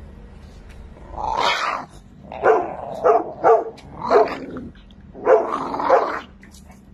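A French bulldog growling and grumbling in a series of about six short pitched bursts, the first and last drawn out longer.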